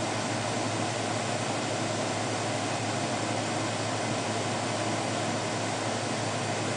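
Steady machine hum and hiss, like running cooling fans, unchanging throughout with no distinct clicks or events.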